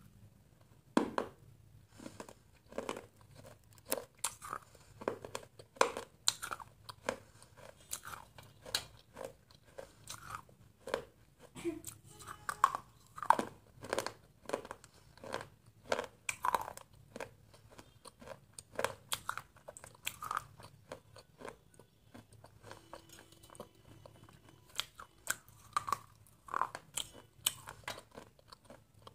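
A person biting and chewing hard, brittle pieces that have been soaked in water, close to the microphone: sharp crunches come roughly once or twice a second throughout.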